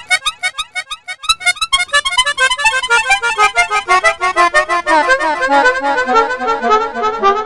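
Bicycle horn honking in a long run of rapid, short honks, their pitch sliding gradually lower over several seconds.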